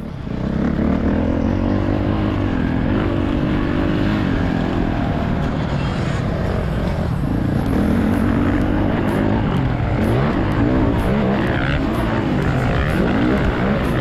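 Motocross bike engine heard up close from the bike, revving up and falling back again and again as it is ridden around a dirt track.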